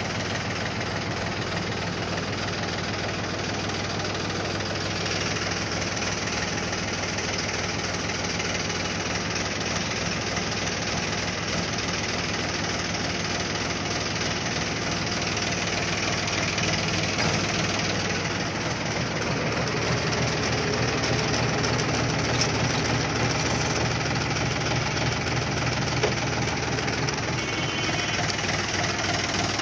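Mahindra B275 DI tractor's three-cylinder diesel engine running steadily at idle, getting a little louder about two-thirds of the way through.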